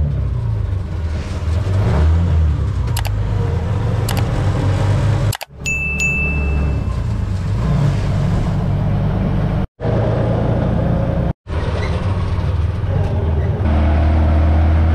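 Mototaxi's motorcycle engine running steadily with road noise while riding along, a continuous low rumble. The sound drops out briefly three times, and a short high tone sounds about six seconds in.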